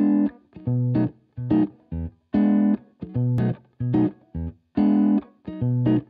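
Background music of short, choppy chords, with brief silences between them.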